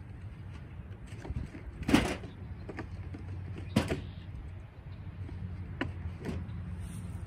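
Two sharp knocks about two seconds apart, the first the loudest, with a couple of fainter clicks later, over a steady low rumble of wind on the microphone.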